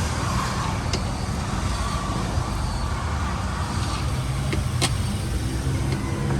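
Car engine running steadily with a low even hum, with a few light clicks over it.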